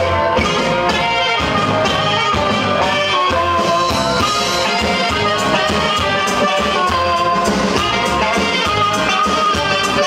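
Loud Latin dance music with brass and a steady drum beat.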